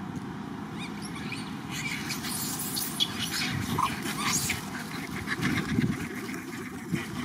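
Outdoor ambience around a troop of macaques: short high calls, then a stretch of crackly rustling through dry leaves about two seconds in as monkeys move and run, over a steady low rumble.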